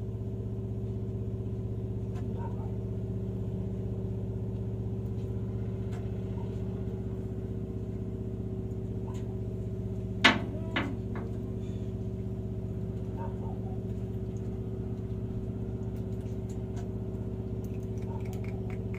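Engine running steadily at idle, a constant low hum with even overtones. A sharp knock comes about ten seconds in, with a smaller knock just after.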